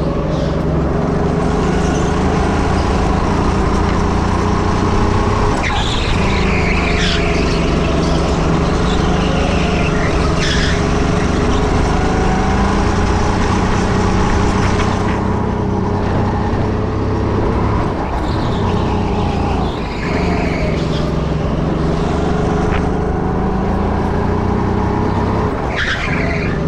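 Go-kart engine heard from the driver's seat, running hard around the track, its pitch dropping and climbing again several times as the kart slows for corners and accelerates out of them.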